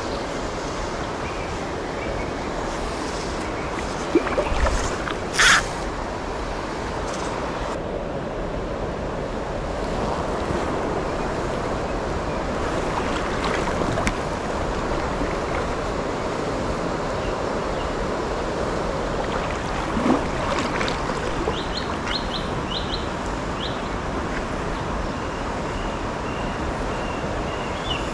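Steady rush of flowing river water, with two brief sharp noises about four and five and a half seconds in. A bird chirps several short notes near the end.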